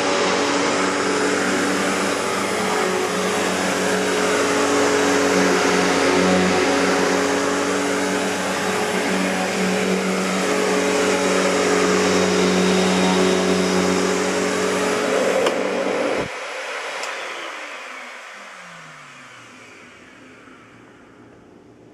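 1994 Riccar N2000 upright vacuum cleaner with its Panasonic-built motor running steadily, then switched off about three-quarters of the way through. The motor spins down with a falling whine and fades out.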